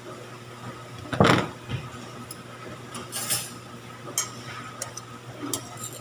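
Metal tongs knocking and clicking against a frying pan as fritters are turned in the oil: one sharp knock about a second in, then a run of lighter, irregular clicks. A steady low hum runs underneath.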